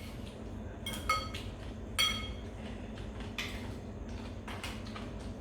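Cutlery and dishes clinking: two ringing clinks about a second apart, with a few softer knocks of tableware after them.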